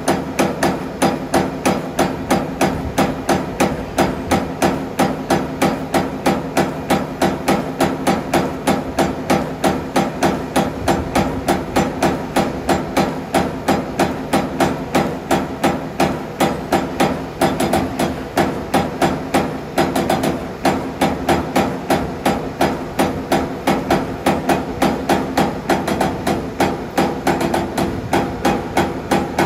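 CNC electric servo turret punch press punching sheet metal in a steady run of sharp strokes, about two to three a second, over a steady machine hum.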